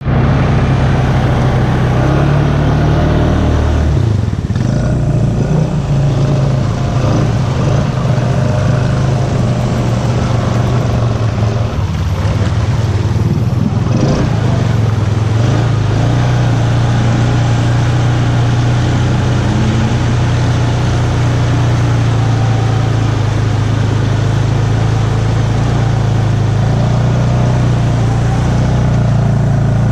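Honda ATV's single-cylinder engine running steadily under load as the quad wades through swamp water, with a strong low hum. Its note shifts about four seconds in and dips briefly a little past the halfway point.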